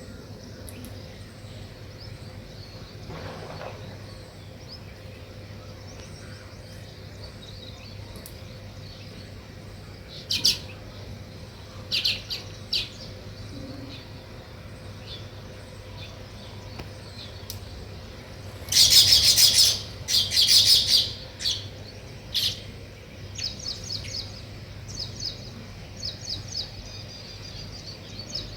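Sparrows chirping in quick runs of short, high notes. Scattered chirps come in the first half, a loud burst of rapid chirping a little past halfway, then softer chirps near the end. A faint steady low hum runs underneath.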